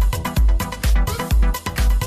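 Background electronic dance music with a steady heavy kick drum, about two beats a second.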